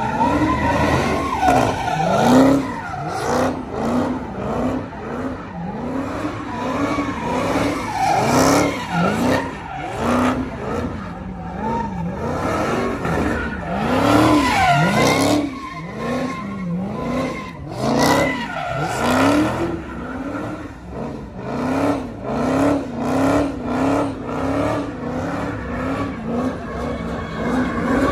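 A car doing donuts in its own tyre smoke: the engine is revved up and let off over and over, its pitch rising and falling about once a second, while the spinning tyres squeal on the pavement.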